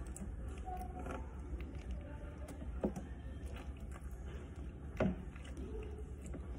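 Faint sticky squishing and rustling of honeycomb being pressed and scraped into a cloth strainer over a plastic jar, with scattered small ticks and two sharp knocks, one near the middle and a louder one later, over a low steady hum.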